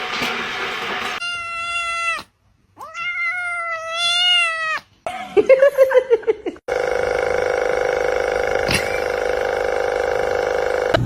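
Domestic cat meowing: a short meow, then a long drawn-out meow that dips and rises in pitch, then a quick run of lower, pulsing cries. From about seven seconds in, a steady, unchanging held tone takes over.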